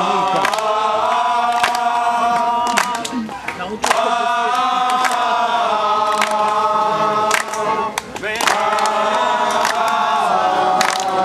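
A group of women singing a folk song together in long, held phrases, breaking twice for breath, with scattered hand claps.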